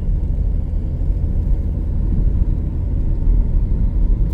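Steady low rumble of a car moving along a road, heard from inside the cabin.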